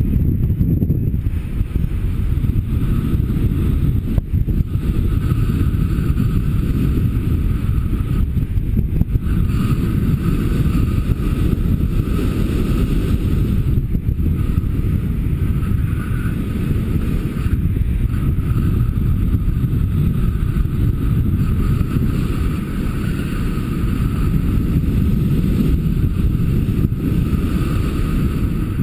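Wind rushing over a paraglider-mounted camera's microphone in flight, a loud steady low rumble.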